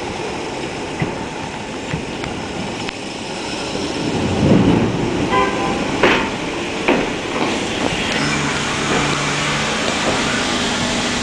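NYC Subway R68 train running into the station past the camera: steady rumble of steel wheels on rail that swells about four seconds in, with a few sharp clacks over rail joints, then a steady low hum from the cars near the end.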